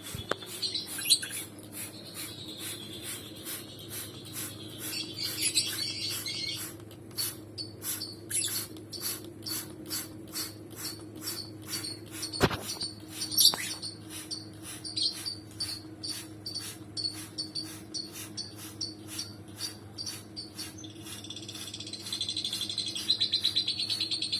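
Caged lovebirds chirping and chattering, with short chirps repeating about two or three times a second and a busier burst of chatter near the end. One sharp click about twelve seconds in.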